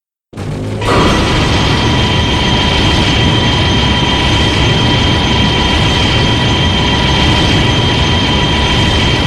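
Kaiju monster sound effect: a loud, harsh, steady rumbling and screeching noise with unchanging high whistling tones through it. It starts suddenly, jumps louder about a second in, and then holds without a rise or fall in pitch.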